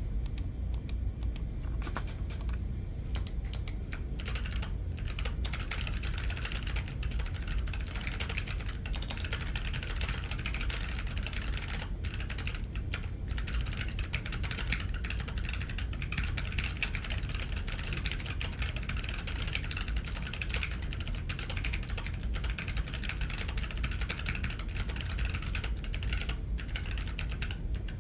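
Continuous fast typing on a mechanical keyboard with clicky Kailh Box Pale Blue and Box Navy switches in a brass plate: a dense, steady stream of sharp clicks.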